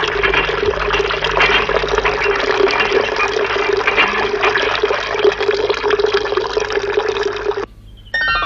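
Cartoon sound effect of water gushing and splashing, running steadily, then cutting off suddenly near the end. A falling, whistle-like glide starts just before the end.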